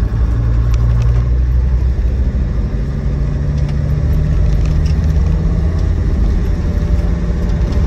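Land Rover Defender TD5 2.5-litre five-cylinder turbodiesel engine pulling up a hill, heard from inside the cabin with road noise. The engine note steps up about three seconds in.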